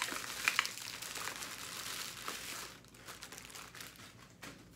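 Clear plastic wrapping crinkling and crackling as it is pulled off a drink can. The noise dies down after about three seconds, leaving only a few faint clicks near the end.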